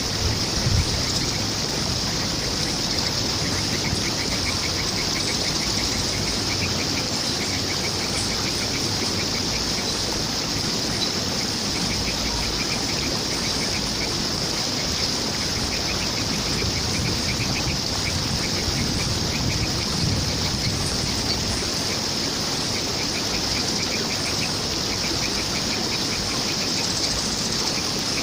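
Steady rush of flowing water, with a bird repeating short, rapid ticking trills every few seconds.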